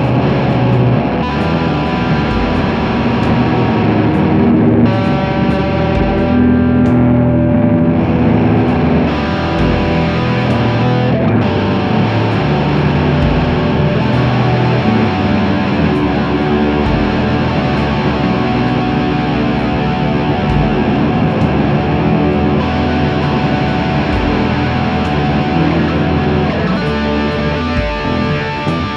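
Electric guitar played through a Keeley Sojourner fuzz and reverb pedal: fuzz-distorted chords and sustained notes washed in reverb, over a steady low pulse about once a second.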